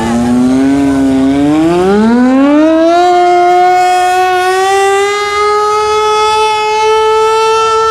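Outdoor warning siren winding up as a noon signal: its tone rises steadily for about three seconds, then holds a loud, steady pitch. At the start it overlaps a steady steam whistle.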